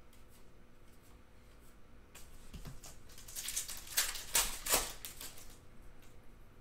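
Foil trading-card pack wrapper crinkling and tearing as it is ripped open by hand, in a run of crackly bursts loudest between about three and five seconds in.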